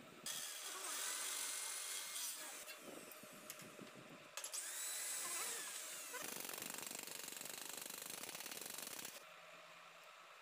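Electric hand drill running faintly in bursts, its pitch rising as it spins up and falling as it winds down, then a steady rapid flutter; the sound cuts off suddenly about nine seconds in.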